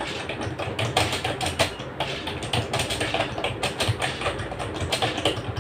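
Typing on a cheap stand-in computer keyboard: a fast, irregular run of key clicks and clacks.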